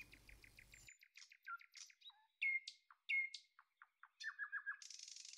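Birdsong: a quick run of chirps, then a few sharp whistled notes that glide in pitch, and a short fast trill near the end.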